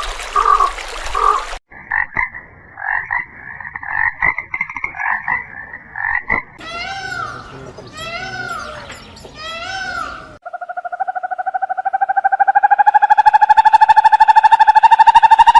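A run of different animal calls: short repeated chirps, then three calls that rise and fall in pitch, then from about ten seconds in a long, fast-pulsing trill that grows louder.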